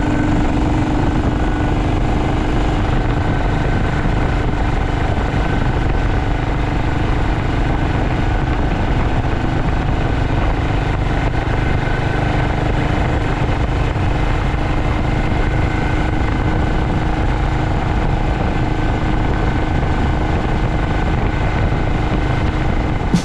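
BSA Starfire motorcycle with a swapped-in B44 single-cylinder four-stroke engine, running steadily.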